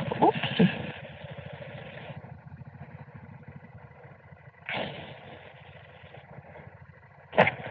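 Motorcycle engine running with an even, low pulsing beat, heard through a helmet intercom. A hiss drops away about two seconds in, then comes back in sudden rushes near the middle and near the end.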